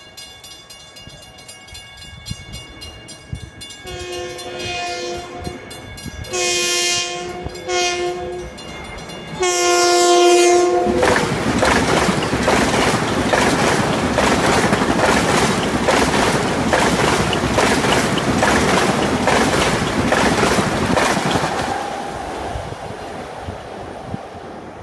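Long Island Rail Road M7 electric train sounding its horn in the grade-crossing pattern (long, long, short, long) as it nears the crossing. It then passes close by at speed, with a loud rumble and rhythmic clatter of wheels over the rails that fades near the end.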